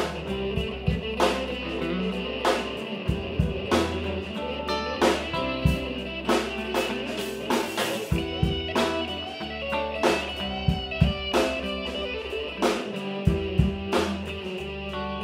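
Background music: guitar over a drum kit with a steady beat.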